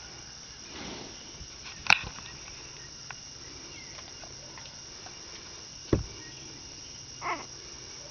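Faint squeaks and grunts from newborn basset hound puppies sleeping in a pile, over a steady background hiss. A sharp click about two seconds in and a low thump about six seconds in are the loudest sounds.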